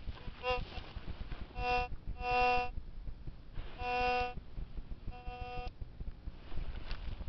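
Tesoro Tejon metal detector giving its target signal: about five buzzy beeps of one steady pitch, some short and some held for half a second, as the coil passes over a buried test target.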